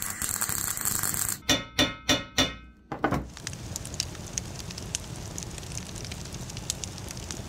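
A welding arc crackles on a cast-iron bench casting, then four hammer blows ring on the metal about a second and a half in. From about three seconds in, a wood fire crackles and pops as the welded casting is heated to relieve the weld stress.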